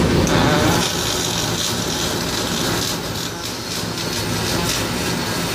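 MIG welding arc crackling steadily as a bead is laid on a heavy truck part, over the steady drone of the factory floor.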